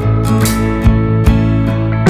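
Background music: guitar chords over a steady beat, with a strike about every 0.4 seconds.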